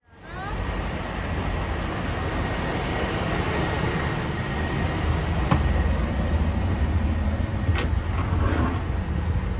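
Open-top double-decker tour bus's diesel engine running with a steady low rumble, heard from inside the lower deck. A sharp click sounds about halfway through and another near the end, followed by a brief rattle.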